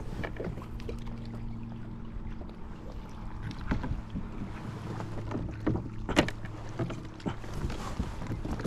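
Water lapping against a fishing kayak's hull over a steady low hum. A few sharp knocks and clicks of gear on the kayak come between about three and a half and six seconds in, the loudest near six seconds.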